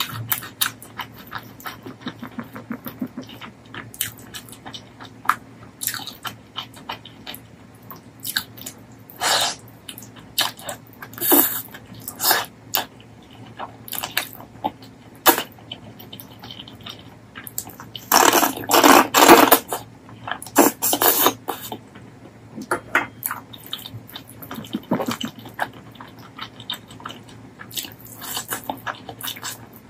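Close-up eating sounds: a person chewing and smacking wet mouthfuls of mutton curry and rice eaten by hand, in short separate smacks and bites, with a louder run of chewing about two-thirds of the way through.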